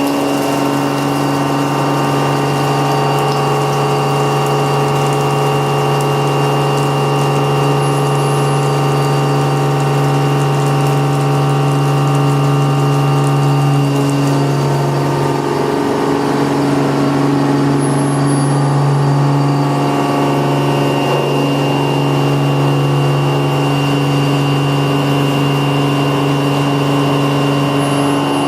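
CNC milling machine cutting metal with an indexable-insert milling cutter: a steady, loud whine made of several tones, whose pitches shift about halfway through.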